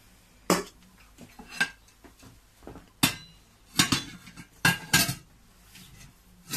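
AMC stainless-steel frying pan, its lid and a ceramic plate knocking and clinking together: about half a dozen sharp, irregularly spaced clanks as the plate is set over the pan to turn out an omelette.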